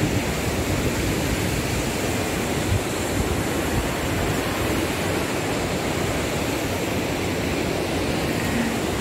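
A river rushing nearby: a steady, even roar of water with no breaks.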